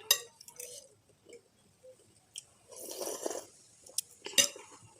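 Close-miked eating of spicy instant noodle soup: chewing, with a short noisy slurp about three seconds in. Sharp clicks of a utensil against the bowl come just after the start and twice near the end, the last the loudest.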